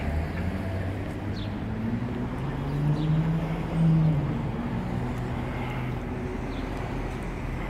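Street traffic: a passing vehicle's engine hum builds to its loudest about four seconds in, then fades, over a steady low rumble.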